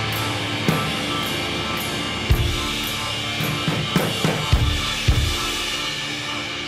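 Instrumental math rock: a drum kit playing irregularly spaced kick and snare hits and cymbal strikes over held chords, getting quieter near the end.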